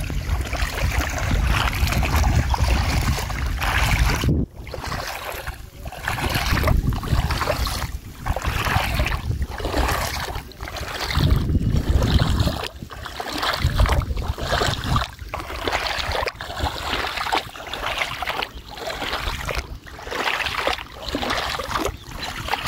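Strong wind buffeting the microphone, with a heavy rumble that swells and drops in gusts.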